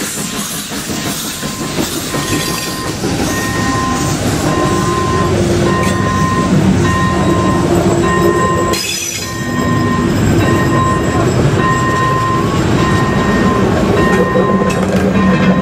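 A steam-hauled train of old passenger coaches rolling past, its wheels clattering over the rails. From about two seconds in, a level-crossing warning signal beeps once a second.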